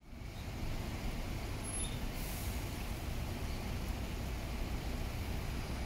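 Volvo B9TL double-decker bus's six-cylinder diesel engine running with a steady low rumble, with a brief hiss about two seconds in.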